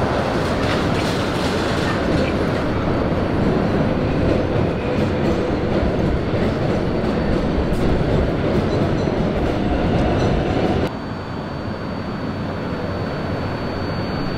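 Elevated 7 line subway train running on the steel el structure overhead, a loud steady rumble. It cuts off abruptly about eleven seconds in, leaving quieter street noise with a faint, steady high whine.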